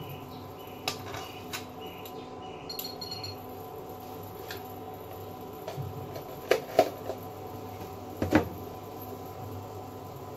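Kitchen utensils and cookware being handled: a few light clicks, then several louder sharp knocks past the middle, over a steady background hum.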